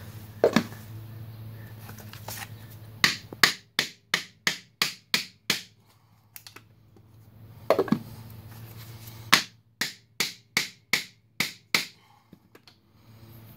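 Hammer tapping a homemade pipe-collar seal driver to seat a new rear main seal and its sleeve into the rear housing of a Duramax LB7 diesel engine. The sharp taps come in two runs of seven or eight, about three a second, with a few single taps between.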